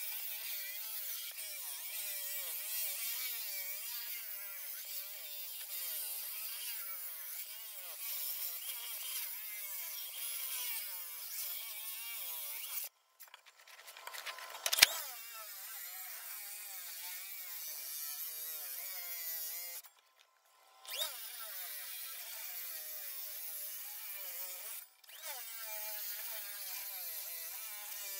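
Hydraulic diamond-blade concrete hand saw wet-cutting a concrete wall, its whine rising and falling in pitch as the blade loads and eases in the cut. The sound cuts out abruptly three times, and there is one sharp click about 15 seconds in.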